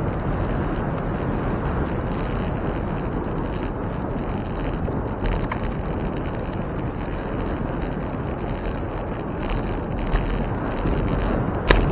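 Wind rumbling steadily on the microphone of a camera carried on a moving bicycle, mixed with road noise.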